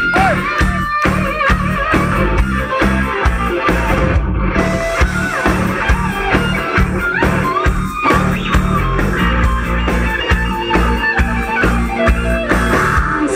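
Heavy metal band playing live at full volume: a lead electric guitar line with bends and vibrato over pounding drums and bass.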